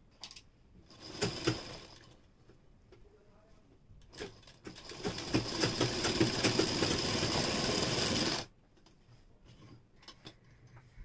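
Sewing machine stitching a kurti's side seam. There is a short run about a second in, then a longer steady run of about four seconds that stops abruptly, followed by faint small clicks.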